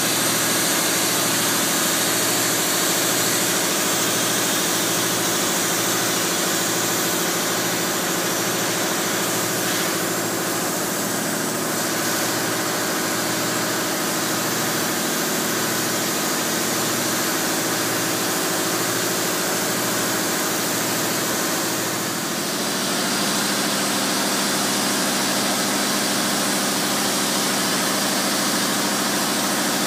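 Spray foam equipment running while closed-cell foam is sprayed onto steel beams: a steady machine hum under a loud, even hiss. The low hum changes about three quarters of the way through.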